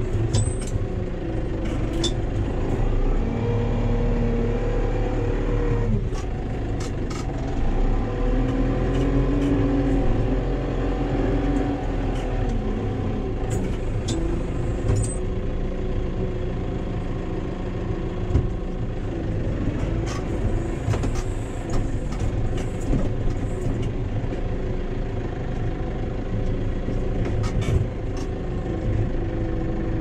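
Case Farmall 75 C tractor's diesel engine running under load, heard from inside the cab, its pitch rising and falling several times while the front loader works with a round bale on the bale fork. Occasional sharp knocks and rattles sound over it.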